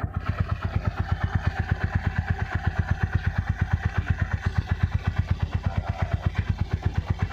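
Yamaha SZ single-cylinder four-stroke motorcycle engine idling through an aftermarket Vmax exhaust pipe, its exhaust beats coming steady and even at about ten a second.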